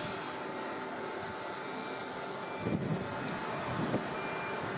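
Steady outdoor rail noise of a VR Sr1 electric locomotive approaching with a freight train, with a faint steady hum and a few low thumps about three and four seconds in.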